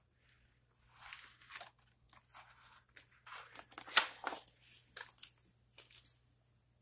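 Page of a large picture book being turned by hand: paper rustling and crackling, loudest in a sharp crackle about four seconds in.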